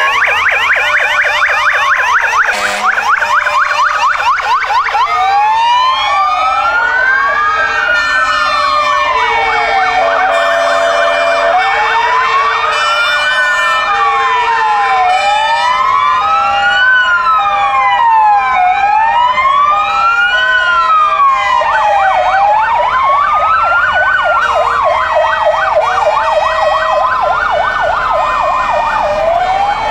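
Several fire-engine sirens sounding together as a column of fire trucks passes. A fast yelp at first gives way to slow, overlapping rising-and-falling wails, with an alternating two-note pattern underneath.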